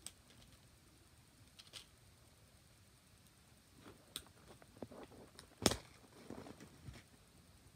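Clear plastic press-on nail package being handled and opened: scattered small clicks and crinkles, busier in the second half, with one sharp plastic snap about two-thirds of the way through.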